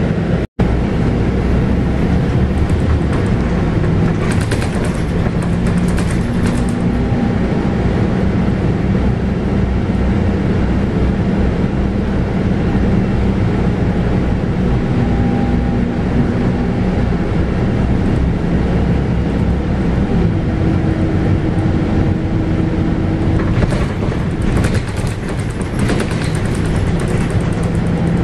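Scania K280UB bus's 9.3-litre five-cylinder diesel engine running under way with road noise, heard from inside the bus; its low note shifts in pitch a few times, with brief bouts of rattling. The sound drops out for a split second near the start.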